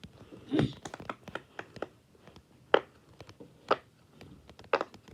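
Fidget toy being clicked: a series of sharp, irregularly spaced clicks.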